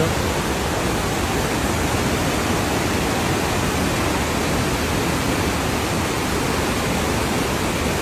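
Steady rush of the Agua Azul cascades' whitewater pouring over the rocks, the river swollen in flood after heavy rain.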